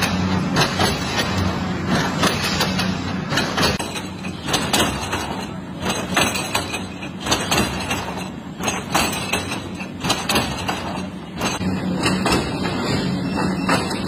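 Hexagonal wire netting machine running as it twists coated wire into mesh: a dense, irregular metallic clatter and knocking over a steady low hum.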